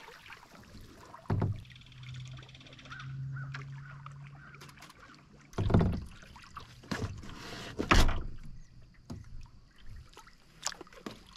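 Canoe paddling: a paddle knocks against the canoe hull several times, loudest about six and eight seconds in, with quiet water sounds between strokes. A steady distant low drone sounds for a few seconds near the start.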